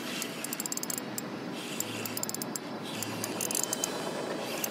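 Spinning reel's drag clicking in repeated short bursts as a hooked fish pulls out line, over a steady hiss of wind and water.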